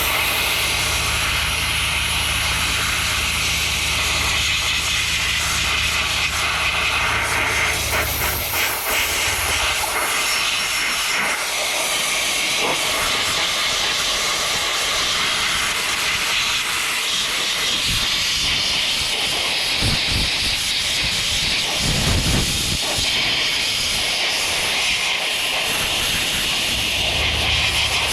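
Aerosol parts cleaner spraying in a long, steady hiss, with a few short breaks, while brake parts are washed down.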